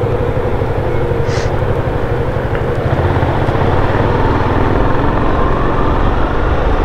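Motorcycle engine running under way with road and wind noise, its note climbing slowly in the second half as the bike gathers speed.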